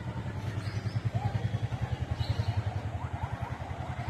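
An engine running steadily at idle, a fast, even low throb. From about three seconds in, short rising chirps repeat two or three times a second over it.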